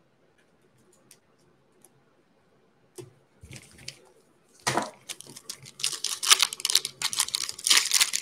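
Foil wrapper of a Panini Mosaic basketball card pack crinkling and tearing as it is ripped open by hand. After a quiet first three seconds with a few faint ticks, it starts with a sharp crackle about halfway through, and the tearing grows loud and continuous over the last few seconds.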